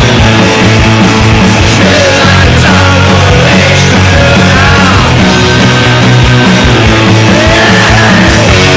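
Garage punk rock band playing loud and steady: electric guitars over a driving drum kit beat.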